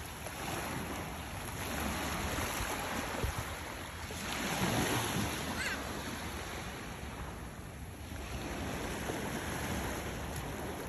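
Sea waves washing onto the beach: a steady rushing hiss that swells and fades several times, loudest about halfway through.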